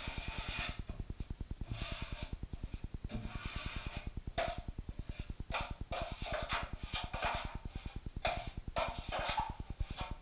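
Drywall knife scraping against a metal mud pan and across the wall while setting-type joint compound is worked: a series of short scrapes, several in quick succession near the middle and end, over a fast, even low pulsing.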